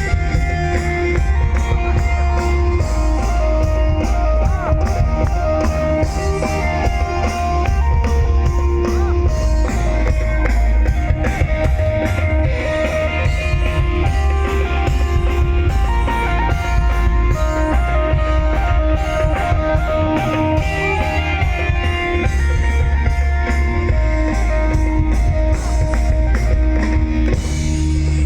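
A live rock band playing loud and continuously: electric guitar notes held over a drum kit and a heavy bass line.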